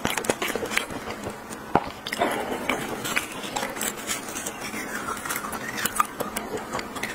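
Close-miked clicks and scrapes of a spoon scooping roe out of a halved sea urchin's spiny shell, mixed with mouth sounds of eating.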